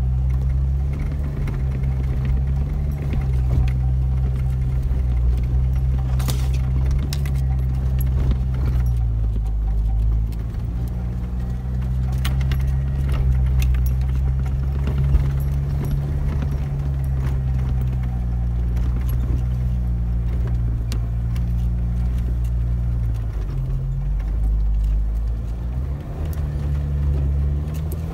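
Jeep Wrangler engine running at low, steady revs under load on a steep dirt-track climb, heard from inside the cab, with knocks and rattles from the bumps. The engine note drops about ten seconds in and shifts again near the end.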